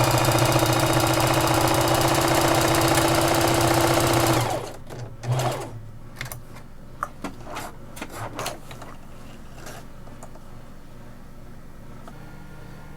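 Singer Heavy Duty 4452 sewing machine running steadily at speed, stitching a buttonhole with a dense zigzag, and stopping about four and a half seconds in. A few light clicks and knocks follow.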